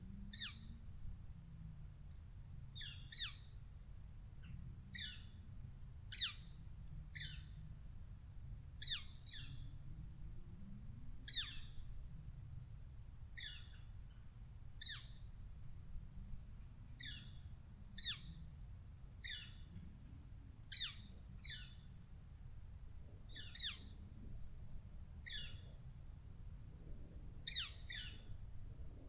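A bird calling over and over with short, high, down-slurred notes, often two in quick succession, every second or two, over a steady low rumble.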